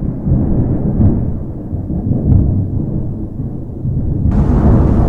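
Rolling thunder, a deep rumble that swells and fades in waves. About four seconds in, the hiss of heavy rain comes in suddenly.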